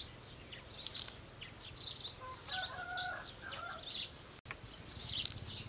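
Small birds chirping over and over, with a chicken calling briefly near the middle.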